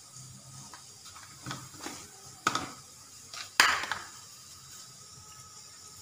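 Four sharp knocks and clinks of kitchenware; the loudest two come about two and a half and three and a half seconds in.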